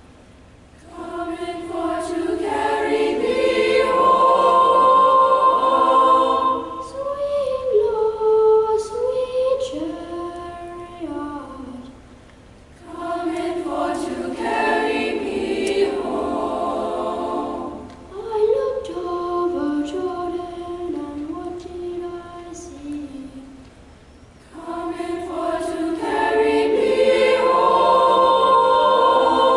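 Boys' choir singing in harmony, in long sustained phrases with a short pause for breath about a second in, again near 12 seconds and again near 24 seconds.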